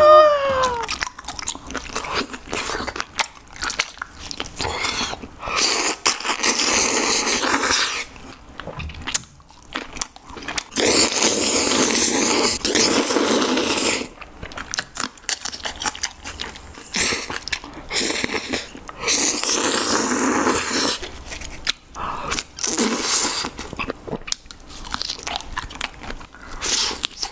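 Close-miked eating of sauced seafood and noodles: wet, sticky chewing and crunching bites with many sharp clicks, broken by several long, loud slurps of noodles.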